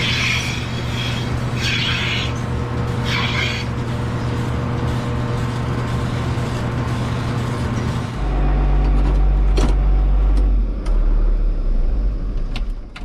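Farm tractor engine running steadily, with a hissing clatter recurring about every second and a half early on. About 8 s in the sound changes abruptly to a louder, deeper rumble.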